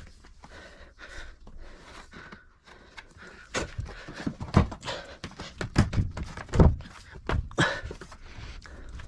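Irregular knocks and thumps, sparse at first and then louder and more frequent from about a third of the way in.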